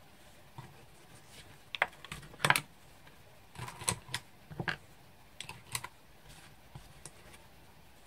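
Light, irregular clicks and taps of small craft tools and supplies being picked up, moved about and set down on a desk during tidying up.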